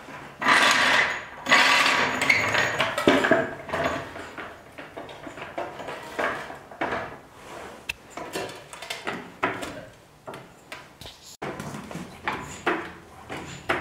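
A piece of wood slid and scraped across a concrete floor, loudest for the first three seconds, then a run of shorter knocks and scrapes as it is shifted about.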